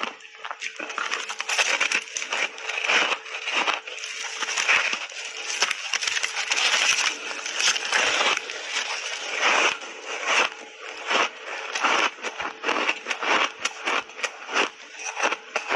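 Refrozen ice chunks coated in matcha tea and milk powder being bitten and chewed close to clip-on microphones: dense, continuous crunching and cracking. A faint steady hum runs underneath.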